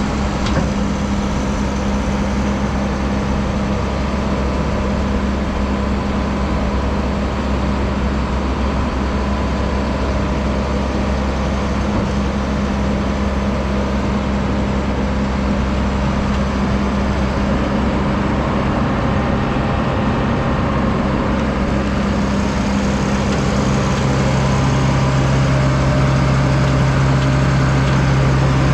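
Diesel engine of a 2004 Vögele 2116T asphalt paver running steadily. About 23 seconds in, its tone shifts and it gets a little louder.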